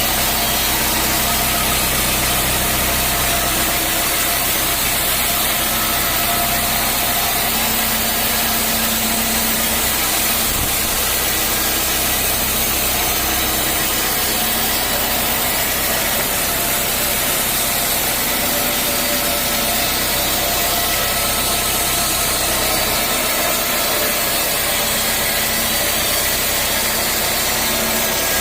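Sawmill running: a steady engine note under a constant loud hiss as wood is sawn. The low engine sound thins out near the end.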